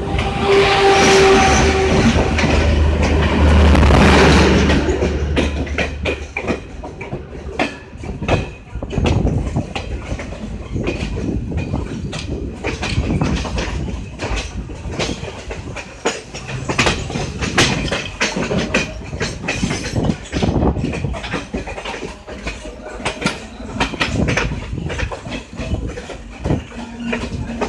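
WCAM-3 electric locomotive passing close by, loudest in the first few seconds with a steady low drone, followed by the Garib Rath coaches rolling past with a continual clickety-clack of wheels knocking over rail joints.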